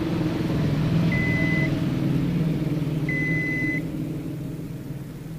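Digital multimeter beeping twice, two short steady high tones about two seconds apart, as its probe is held on a pin of a phone board's LCD connector. A low rumble runs underneath and fades near the end.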